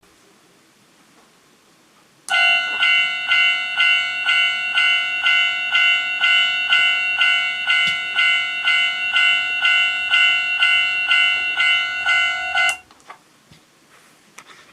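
Electronic warning bell of a 1/24-scale capsule-toy Japanese railway crossing, a "kan-kan-kan" ding played through its small built-in speaker. It starts suddenly about two seconds in, repeats evenly at about two dings a second for roughly ten seconds, then cuts off abruptly.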